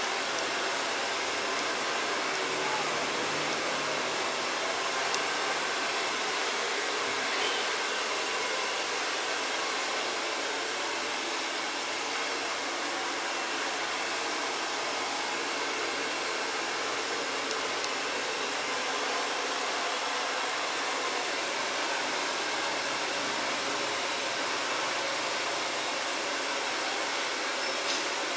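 A steady, unbroken rushing hiss at an even level.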